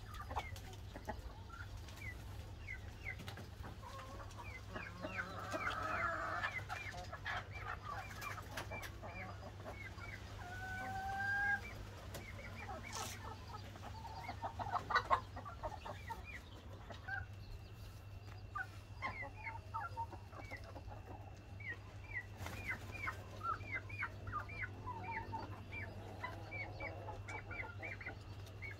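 Backyard chickens clucking and calling, with many short, high chirps throughout and one drawn-out rising call about ten seconds in. A steady low hum sits under it all.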